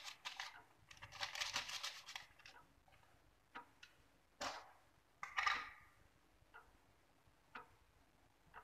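Faint crinkling of a paper baking-powder sachet being shaken out over flour. It is followed by a few light clicks and taps as a teaspoon and a small plastic pot are handled.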